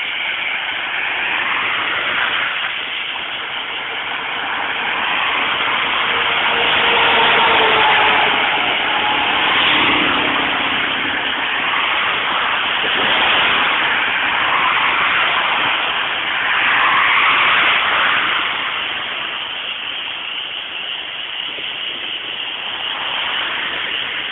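Road and wind noise heard from a moving car: a loud, dense rush that swells and eases every few seconds, with faint brief engine-like tones in the middle.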